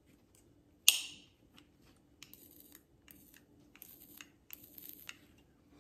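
A sharp click about a second in, then several short, faint scratchy rustles, as a rechargeable electric lighter and its cord are handled.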